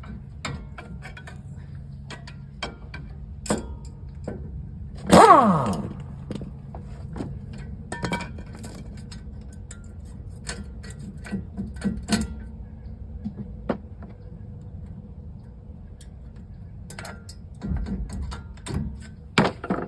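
Pry bar and brake caliper on a pickup's front disc brake knocking and scraping as the caliper is levered off the rotor. There are scattered metal clicks and clanks, and about five seconds in one loud scraping squeal that falls in pitch.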